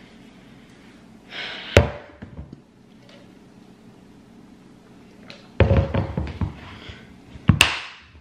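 Two sharp knocks, one just under two seconds in and one near the end, with a stretch of clatter and rustling in between.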